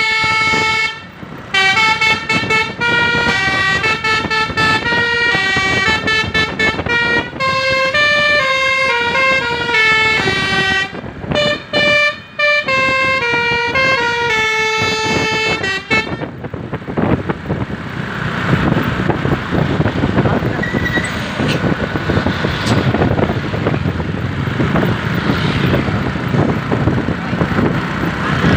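Basuri telolet multi-tone bus horn with roof-mounted trumpets playing a quick stepping melody for about the first sixteen seconds, with a few short breaks. The horn then stops and a loud, even rumble of engine and road noise takes over.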